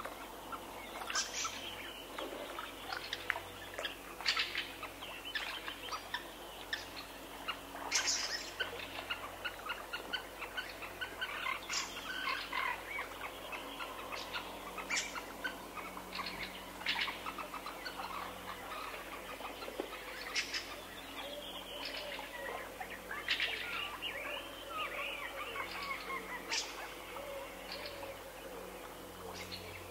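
Wild songbirds singing and calling, several overlapping: a steady run of short chirps, whistles and quick trills.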